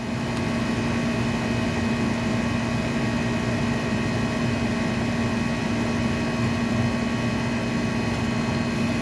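Air-conditioning condensing unit running: a steady low hum under the even rush of the condenser fan, unchanging throughout.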